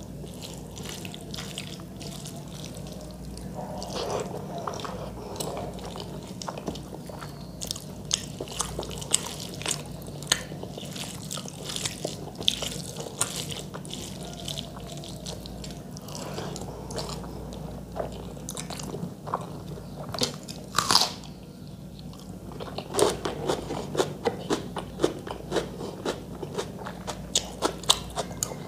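Close-up eating sounds: fingers mashing and mixing rice with chicken curry on a steel plate, with mouth chewing. Many small sticky clicks and wet smacks come in quick runs, busier in the second half.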